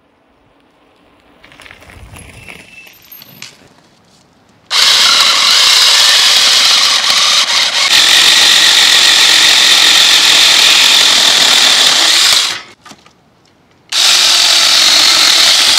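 Small battery-powered chainsaw cutting through dead branches, a loud steady whine for about eight seconds. It stops, then starts again for a second cut near the end.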